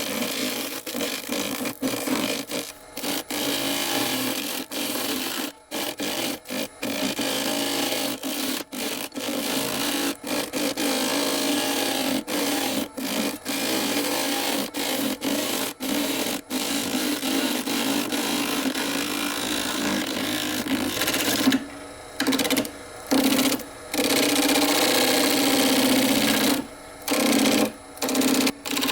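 Woodworking lathe running, a turning tool or abrasive scraping the spinning driftwood-and-resin blank, over a steady motor hum. The sound is broken by frequent brief gaps, longer ones in the last third.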